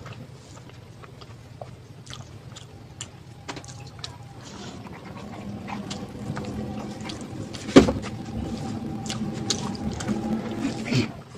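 Close-up eating sounds from a plate of rice and dal: wet clicks and squelches, with one sharp, loud click about two-thirds of the way in. A low, steady hum rises in the background from about halfway through.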